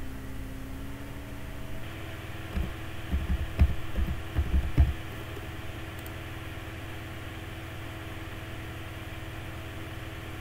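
Computer keyboard typing: a quick run of dull keystroke thumps between about two and a half and five seconds in, over a steady low hum.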